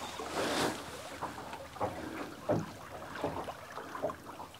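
Water lapping against a small fishing boat's hull, with wind, and a few light irregular knocks.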